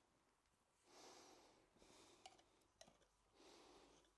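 Near silence: three faint breaths from a man working close to the microphone, and a couple of small clicks.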